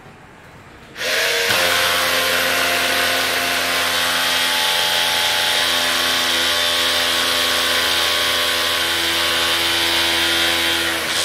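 Cordless drill boring an anchor hole overhead into a concrete ceiling for an HKD drop-in anchor. It starts about a second in and runs steadily under load for about ten seconds, drilled all the way to depth.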